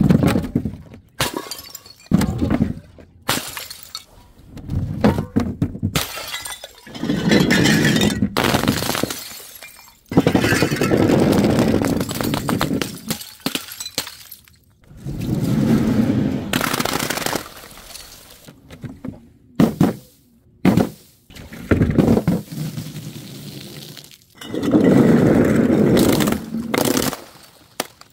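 A string of glass bottles sliding down a wooden chute and smashing on hard ground one after another, with shards scattering and paint-filled balloons bursting. Each smash is a sharp crash, and several come with a rumble of about a second or two.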